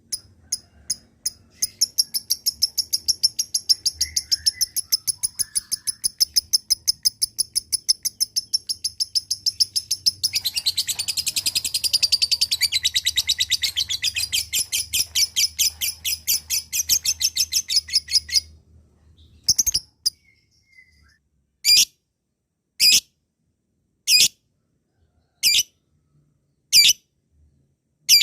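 Lovebird chattering in a long rapid trill of sharp, high chirps (the 'ngekek panjang' call). It grows denser and louder about ten seconds in, breaks off after about eighteen seconds, and turns to single chirps about one every second and a half.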